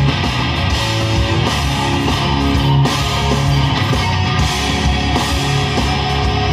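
Heavy rock music with electric guitar and drums, playing from an iPod through the car stereo.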